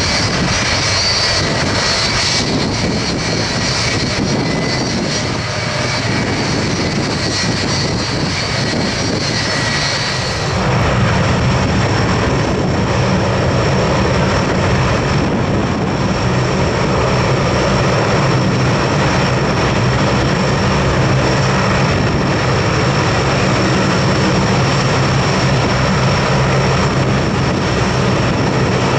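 C-130H Hercules' four Allison T56 turboprop engines running as it taxis: a steady, loud propeller drone with turbine whine. For the first ten seconds or so a stronger high whine lies over it, and this stops abruptly, leaving the low propeller tones plainer.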